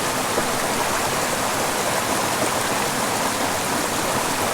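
Small mountain creek rushing over rocks, a steady, even water noise.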